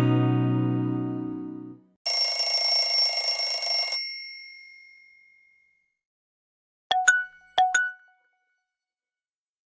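Nokia 6750 Mural phone ringtones played one after another. A strummed-guitar ringtone fades out, then a bright ringing bell-like tone sounds for about two seconds and fades. Two short, clear chime beeps come near the end.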